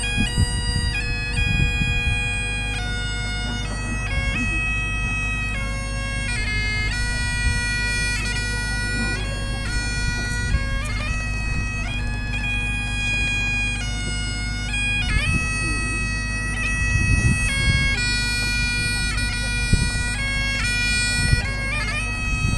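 Solo Highland bagpipe playing a tune in held notes over its steady drones.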